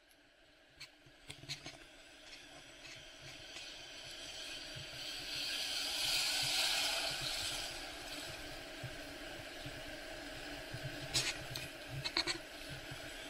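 Ocean surf whitewater rushing and fizzing around a camera in a waterproof case; the hiss of the foam swells to its loudest about halfway through as a broken wave washes past the lens. A few sharp clicks near the end.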